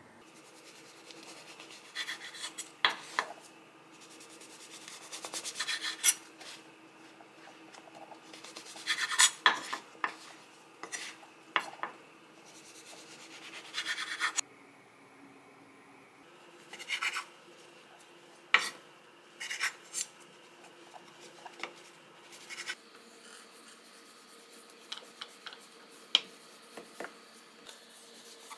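A knife sawing through the crusts of a stack of white sandwich bread on a wooden cutting board: short rasping strokes in irregular bursts, with a few sharp clicks.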